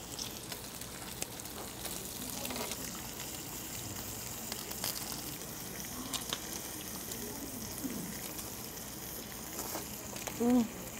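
Pork belly strips sizzling on a tabletop electric grill plate, a steady frying hiss with scattered small clicks. There is a short hum of voice about ten and a half seconds in.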